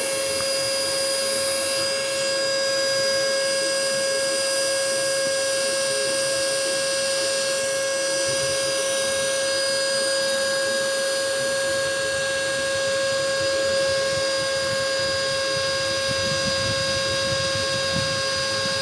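Cordless vacuum cleaner's motor running steadily: a constant high whine over a rush of air.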